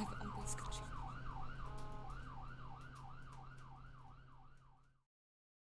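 Ambulance siren in a fast yelp, its pitch sweeping up and down two or three times a second over a steady low hum, fading out and cutting off about five seconds in.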